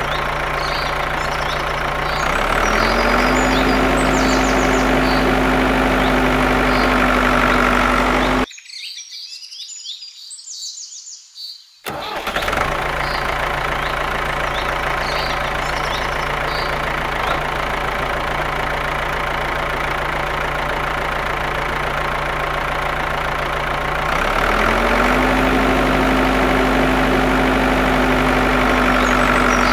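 Tractor engine running steadily, its pitch stepping up about two seconds in as it picks up speed. It cuts out for a few seconds near the middle, leaving bird chirps, then comes back and steps up again near the end. Bird chirps run under the engine.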